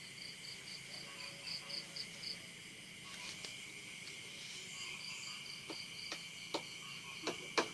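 Faint insect chorus, typical of crickets: a steady high trill with rows of quick pulsed chirps, and a few sharp clicks near the end.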